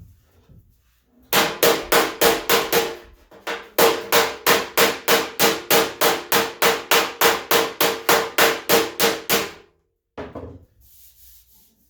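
Hammer blows on the steel front fender of a 1978 Ford F100, knocking out small dents: rapid, even strikes about three or four a second with a metallic ring. A short run comes first, then after a brief pause a longer run of about twenty blows, followed by one softer knock near the end.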